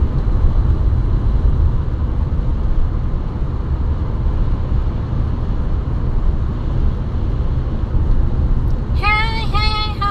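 Steady low road and engine rumble of a moving car, heard from inside the cabin. About nine seconds in, a person's voice comes in with drawn-out, held tones.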